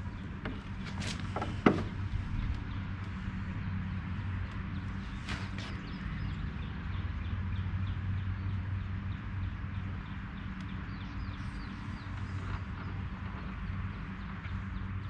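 Knocks and clunks of a lawnmower being handled and tipped over, with one sharp knock a couple of seconds in, over a steady low hum.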